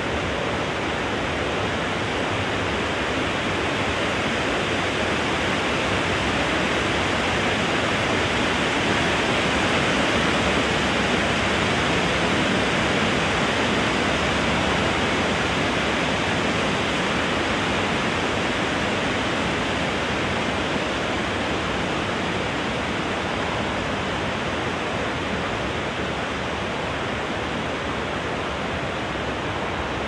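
Steady wind blowing through trees, a continuous rustling rush of leaves and branches. It swells a little about a third of the way in and eases off slightly again.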